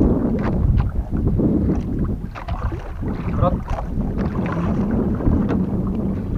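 Wind buffeting the microphone over water lapping and slapping against the hull of a small outrigger boat, with scattered short knocks and splashes.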